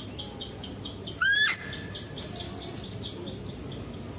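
Spotted deer (chital) giving one loud, shrill call a little over a second in, a short note that rises sharply and then holds. A faint, fast chirping, about four or five a second, runs under the first second.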